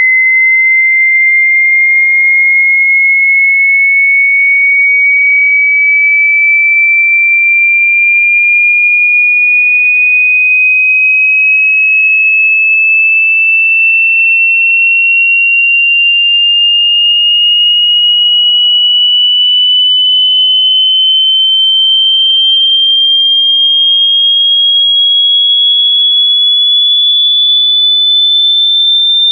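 Hearing-test sine-wave tone: a single high, pure tone rising slowly and steadily in pitch at an even, loud level, the frequency sweep used to check how high one can hear.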